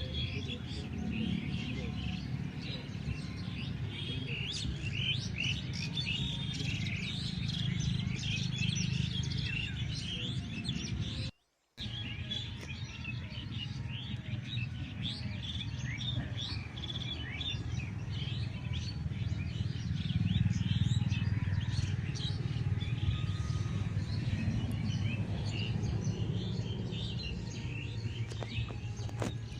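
Many birds chirping together in a dense run of short, high calls over a steady low rumble. The sound cuts out completely for a split second a little before halfway, then the chirping resumes.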